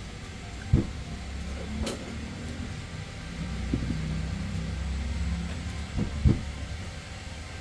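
Handling knocks as the plastic parts of a Bluetooth speaker casing are pressed and locked into place: a sharp knock about a second in and two more close together near the end, over a low rumble.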